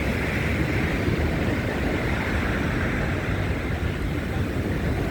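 Steady rushing roar of wind buffeting a phone's microphone, with a rumble at the low end.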